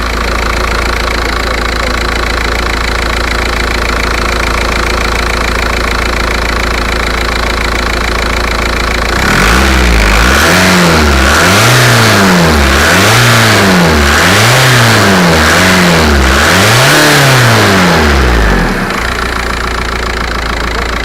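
VW Passat 1.9 TDI four-cylinder diesel engine idling steadily, then revved up and down repeatedly, about once every second and a half, for some ten seconds before dropping back to idle.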